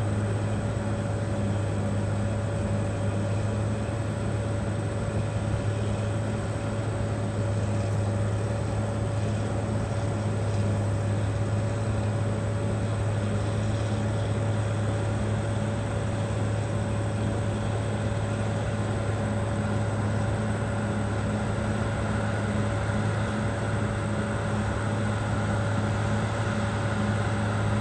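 Caterpillar D6R XL bulldozer's diesel engine running at a steady speed, a constant low drone.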